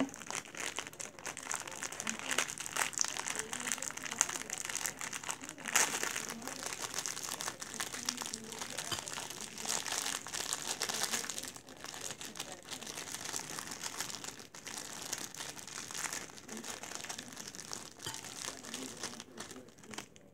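Plastic fortune-cookie wrapper crinkling and crackling as it is handled and torn open, with a louder crackle about six seconds in.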